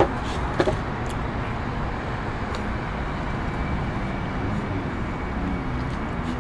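Steady outdoor city background noise, the wash of passing street traffic, with a couple of light clicks in the first second.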